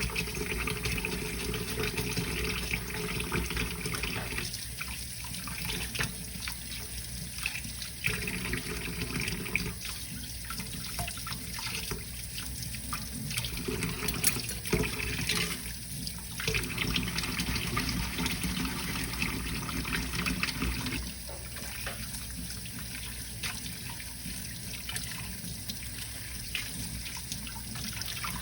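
Tap water running into a sink while dishes are washed by hand, with a few sharp clicks of dishes.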